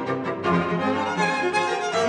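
Background music on bowed strings: violin with lower strings beneath, playing held notes that change about every half second.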